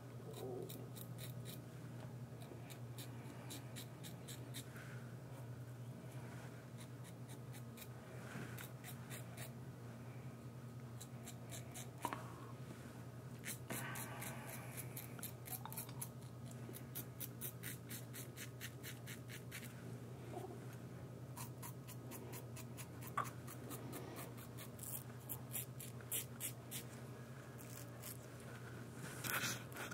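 Merkur 34C HD double-edge safety razor cutting through lathered stubble: runs of quick, crisp scratching strokes with short pauses between them.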